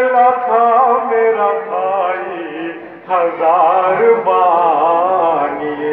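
A man chanting a nauha, a Shia lament, into a microphone in long, wavering held notes. The line breaks off briefly about three seconds in.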